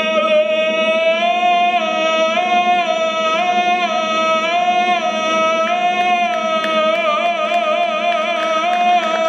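Male operatic singer holding one long high note, with a brass band accompanying. The note begins to waver in a wide vibrato about seven seconds in.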